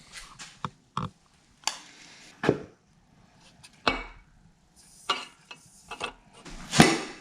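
A piston being tapped down into a cylinder bore of a Toyota 7M-GTE block: several sharp taps, irregularly spaced, about a second apart.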